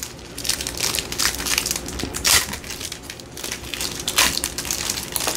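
Plastic wrapper of a 1988 Score baseball card pack crinkling as it is torn open by hand. The crackling is irregular, with sharper crackles about two seconds in and again a little after four seconds.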